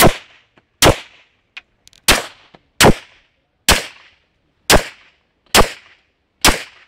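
Semi-automatic pistol firing eight single shots at a steady pace of about one a second. Each is a sharp report with a brief ring-out.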